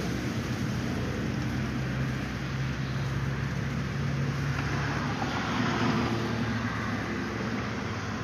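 Road traffic going by: a steady rumble with a low engine drone in the first half, swelling a little past the middle as a vehicle passes.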